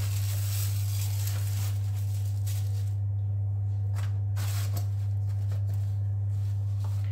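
A steady low hum, the loudest thing throughout. Over it, the soft crinkling and rustling of an aluminium foil baking tray and pastry being handled, with a few brief sharp crinkles about four and six seconds in.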